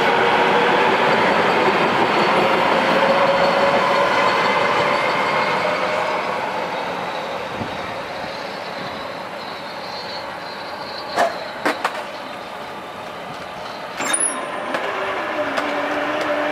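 LA Metro electric light rail train passing a grade crossing and running away down the track, its motor whine and wheel noise slowly fading and falling in pitch. Near the end a few sharp clicks and a knock, then a steady low hum as the crossing gates begin to rise.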